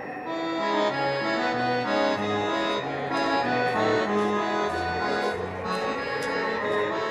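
Instrumental outro of a Russian pop song: a sustained-note melody over a stepping bass line with a light, even beat.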